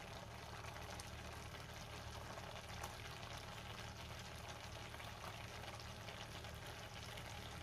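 Faint, steady sizzling of a thick tomato-onion masala, thinned with a little water, cooking in a nonstick pan, with a few faint soft ticks.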